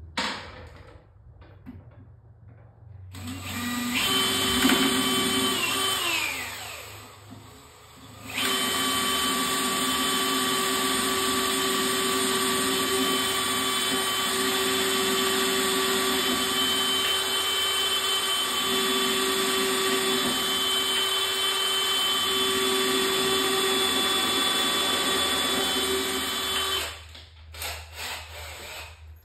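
Cordless drill pre-drilling pilot holes through hardwood cabinet face frames so the two faces can be screwed together. A short run about three seconds in winds down, then a long steady run starts about eight seconds in and stops near the end.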